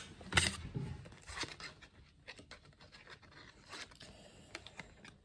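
Playing cards being handled and sorted by hand: scattered soft snaps and slides of card against card, the sharpest click about half a second in.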